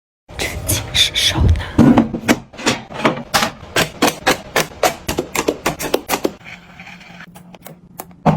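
Quick series of sharp taps and clicks, several a second, from small items being handled and set down. It eases off about six seconds in to a faint steady hum, and the taps resume near the end.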